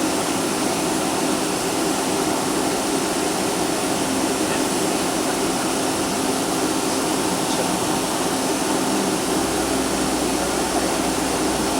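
Steady cabin noise inside a Boeing 757-200 airliner: the jet engines and air conditioning hum and rush at an even level, with a low rumble coming in about nine seconds in.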